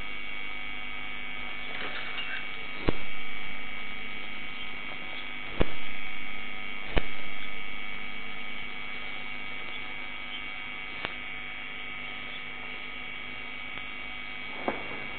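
Steady electrical hum with a few thin high whining tones, broken by three sharp clicks about three, five and a half, and seven seconds in.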